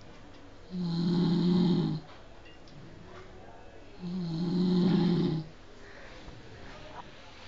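A person snoring: two snores, each lasting about a second and a half, about three seconds apart, with quiet breathing-level noise between them.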